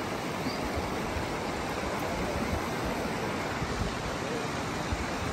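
Steady rushing of river water, an even noise with no distinct splashes.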